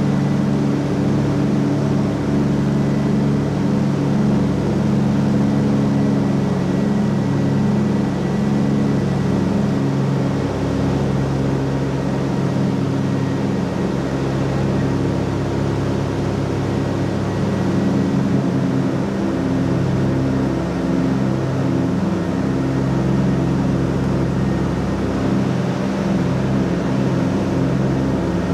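The twin Pratt & Whitney R-1830 radial engines of a C-47 droning steadily in cruise climb, heard from inside the cabin.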